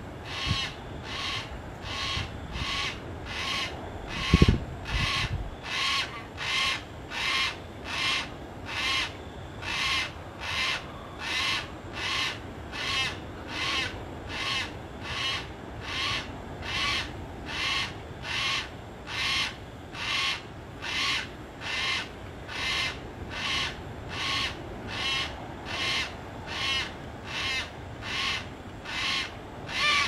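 Yellow-tailed black cockatoo calling: a short, harsh call repeated steadily, about three calls every two seconds. A single low thump about four seconds in.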